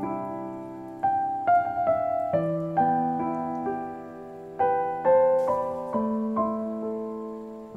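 Background piano music: a slow, gentle melody of single notes and chords, each fading away after it is struck.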